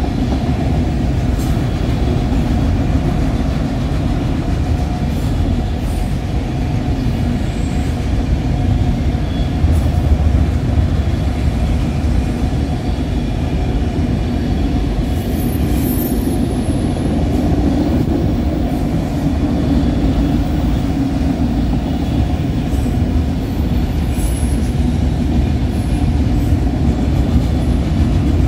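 Railway cars rolling steadily past on the track, a continuous rumble, with faint high wheel squeals about halfway through and again near the end.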